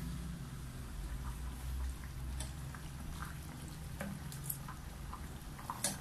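Chicken curry in coconut milk simmering in an aluminium pot on a gas burner, being reheated: scattered soft pops and clicks of bubbling and a ladle stirring, over a low steady rumble.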